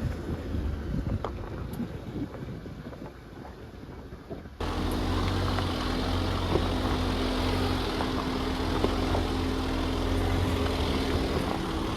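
Jeep driving on a rough dirt road: engine running with rumble from the tyres and road. About four and a half seconds in it cuts suddenly to a louder stretch with a steady engine hum.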